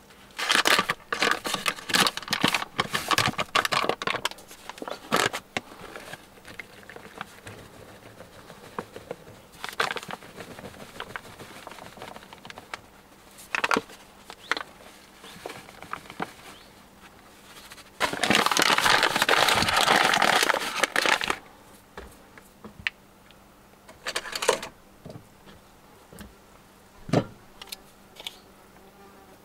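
Flour bag crinkling and rustling in bursts as flour is poured from it into a mixing bowl, with one longer, louder stretch about two-thirds of the way through. A few light knocks of a jar set on the wooden table come near the end.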